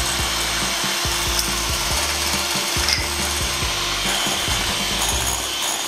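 Electric hand mixer running steadily, its beaters whisking beaten eggs and cane sugar in a glass bowl.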